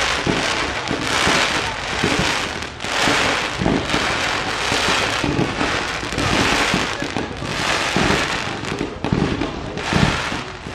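Fireworks display: crackling and hissing of sparks and bursts in repeated swells about once a second, with low thumps mixed in.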